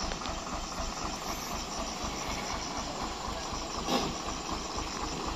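Heavily loaded Mitsubishi Fuso dump truck's diesel engine running at a steady, low, even pulse while the truck sits bogged in soft mud on a climb. A brief burst of noise comes about four seconds in.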